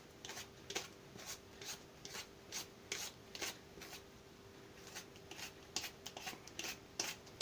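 Hand-held vegetable peeler scraping thin slices off a zucchini half in quick, even strokes, about two or three a second, pausing briefly about halfway through before starting again.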